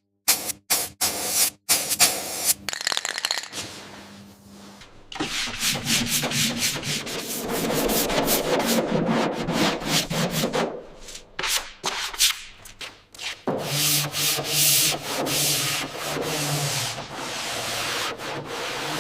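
Power sanding: a motor hum with a dense scraping hiss starts about five seconds in, after a few sharp knocks, and keeps going with two brief dips.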